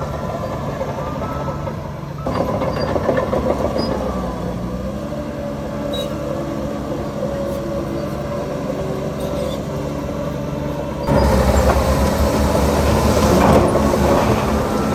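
Diesel engines of heavy earthmoving machinery running steadily, getting louder about two seconds in and louder again, suddenly, about eleven seconds in.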